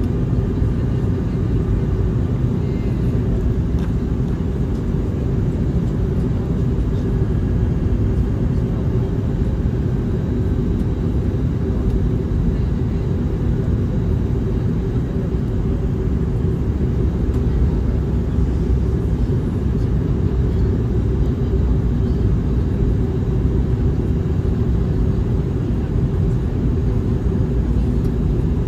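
Airbus A321neo cabin noise in flight, heard from a window seat over the wing: a steady low rumble of airflow and the Pratt & Whitney geared turbofan engines, with a faint steady hum in it.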